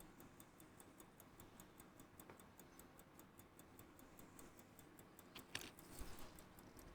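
Tissot Cal. 43 pocket watch movement ticking faintly and evenly at about five ticks a second, the balance freshly running again after a full service. A brief handling click comes near the end.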